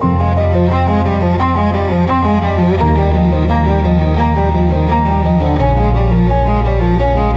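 Ambient string music led by a deep cello: sustained low notes change about every three seconds under a moving line of shorter notes, and the music swells in suddenly at the start.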